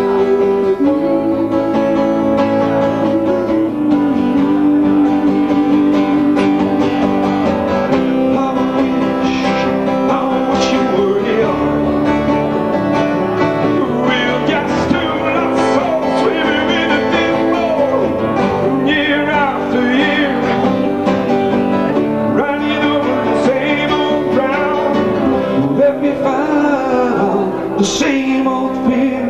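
Live acoustic band music: strummed and picked acoustic guitars over an acoustic bass guitar, with a wavering lead melody line on top from about nine seconds in.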